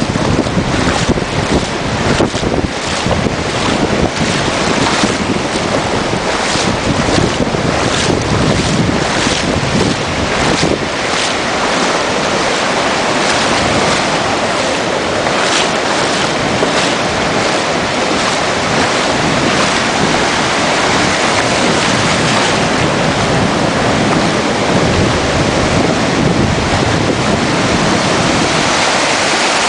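Wind buffeting the microphone over the rush of sea waves. It is gusty and crackling for the first dozen seconds, then settles into a steady loud hiss.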